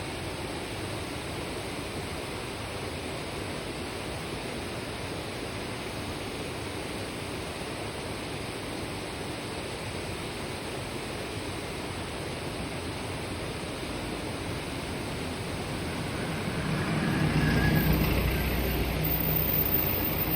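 Kibune River stream flowing steadily over rocks, an even rush of water. Near the end a low engine rumble with a steady hum rises over the water.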